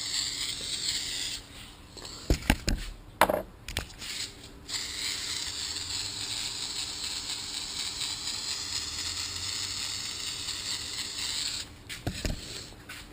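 Spray adhesive hissing from an aerosol can in steady sprays, the longer one about seven seconds, with a few sharp clicks and knocks in the gap between them.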